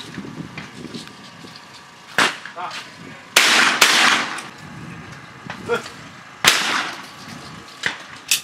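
Shotguns firing at clay targets: about five sharp shots, each trailing off in an echo, the loudest a pair in quick succession about three and a half seconds in.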